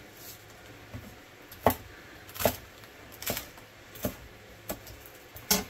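Chef's knife slicing through onion greens and knocking on an end-grain wooden cutting board: about six slow, unhurried cuts, a little under a second apart.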